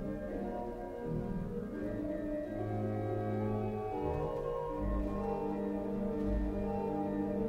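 Pipe organ playing sustained chords that change every second or so, with deep pedal notes entering about five seconds in.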